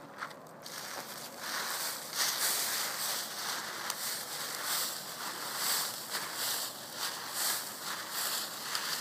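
Footsteps crunching on dry ground at a steady walking pace.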